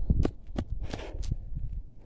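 A runner's footsteps during a shuttle run: several uneven footfalls over a low rumble.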